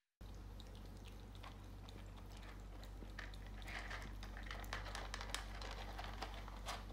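Two kittens crunching dry kibble from a plastic bowl: quick, irregular little crunches and clicks, more frequent in the second half, over a steady low hum.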